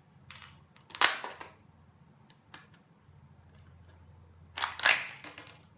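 Plastic snaps and crackling as a Kinder Joy egg's packaging and toy capsule are pulled open by hand: a sharp click about a second in, then another cluster of clicks and crinkles near the end.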